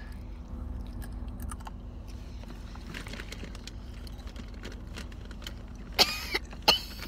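Faint scattered clicks and small taps over a low steady hum, with a short vocal sound about six seconds in and a brief louder click soon after.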